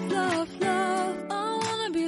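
Background song: a voice singing a melody with vibrato over acoustic guitar.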